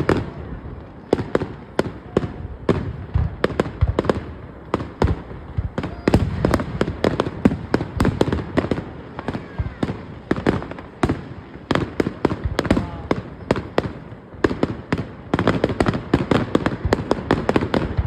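Aerial fireworks display: shells bursting in rapid succession with booms and sharp cracks, dense almost throughout and heaviest near the end.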